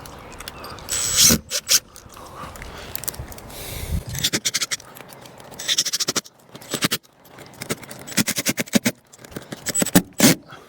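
Irregular clicks, knocks and scrapes of hands and tools working a pipe fitting into place, with louder clusters of sharp knocks about a second in, around four to six seconds, and near the end.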